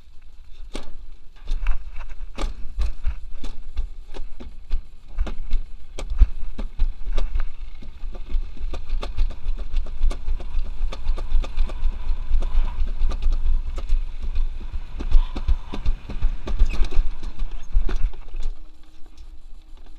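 Summer toboggan sled running fast down a stainless-steel alpine-slide trough without braking: a steady low rumble with frequent irregular clacks and knocks, easing off near the end as the sled runs out at the bottom.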